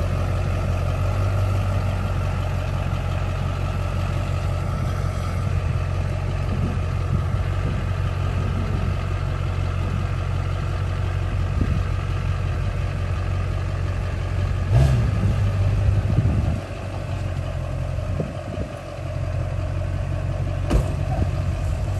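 Lifted pickup truck's engine idling steadily. A heavy knock comes about fifteen seconds in, the engine sound thins out briefly after it, and there is a sharp click near the end.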